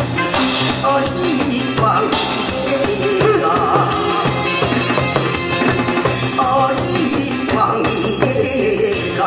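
Lively music with a steady beat, with Korean barrel drums (buk) beaten with wooden sticks along with it.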